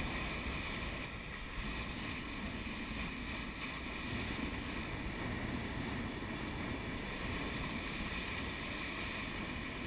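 Steady rush of water past the hull of a sailing yacht running under spinnaker at about hull speed, mixed with wind buffeting the microphone.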